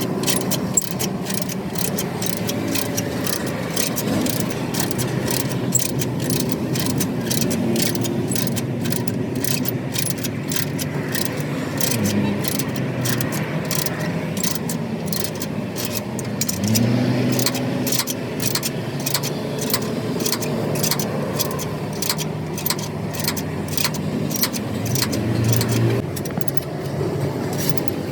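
Vehicle engines running steadily, with one rising in pitch as it revs about two-thirds of the way through, under frequent sharp metallic clicks and clinks of repair work.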